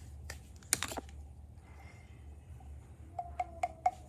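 Small objects or containers being handled: sharp clicks and knocks, a loud cluster about a second in and a quick run of four near the end, over a low steady hum.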